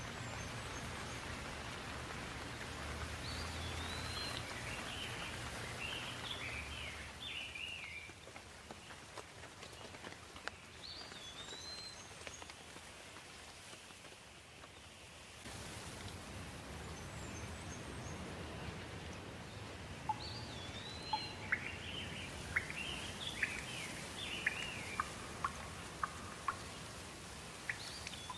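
Steady rain with a songbird singing phrases of quick rising and falling whistles, a few seconds each with pauses between, the same hooked opening note coming back each time. Sharp ticks, like drips, sound through the later part.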